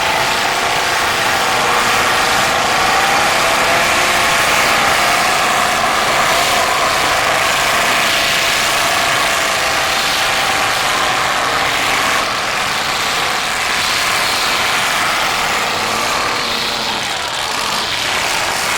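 Several bone-stock demolition derby cars' engines running and revving together, a steady loud din with engine pitches wavering up and down.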